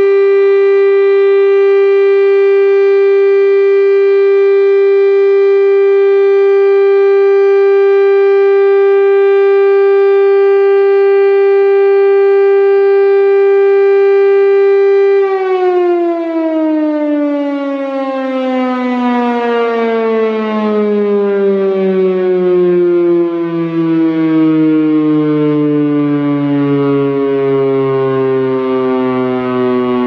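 Federal Signal STL-10A outdoor warning siren sounding a short alert: a steady, loud tone, then about halfway through its pitch starts falling slowly as the siren winds down.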